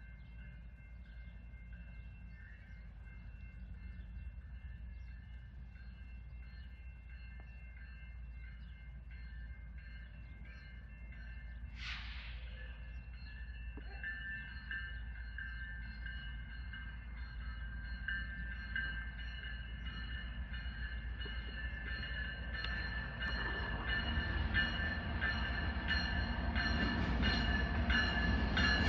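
Empty coal train of freight cars rolling, with a low rumble and a steady high-pitched wheel squeal, growing steadily louder. There is a brief hiss about twelve seconds in, and the wheels clatter more and more near the end.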